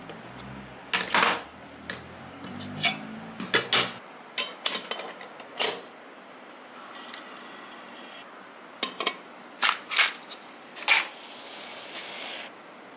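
Cookware and utensils being handled: a string of sharp clinks and knocks. There is a short hiss about seven seconds in and another near the end.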